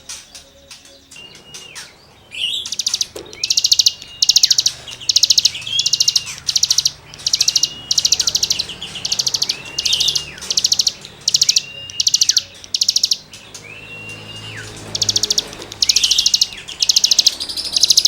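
A cigun songbird singing in full voice, a rasping 'gesekan' song. It repeats one phrase: a clear whistle that slides down at its end, then fast buzzy chattering trills, over and over about every second and a half, starting about two seconds in.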